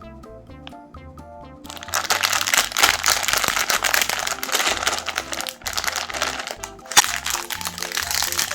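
Meat grinder crunching M&M candies, a dense crackling and crunching of hard candy shells that starts about two seconds in, with one sharp crack near the end. Background music plays throughout.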